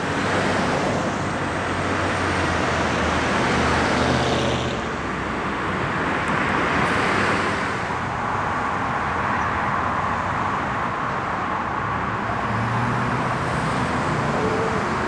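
Steady road traffic: cars driving past on a busy road, the noise swelling a little now and then as vehicles go by.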